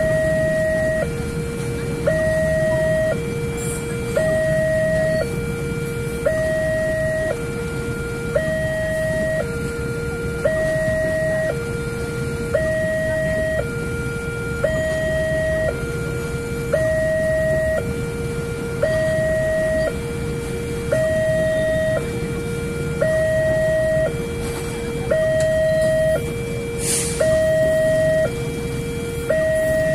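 Railway level-crossing warning signal from a post-mounted loudspeaker, sounding two tones that alternate high and low about once a second. Under it runs the steady rumble of a passenger train passing over the crossing.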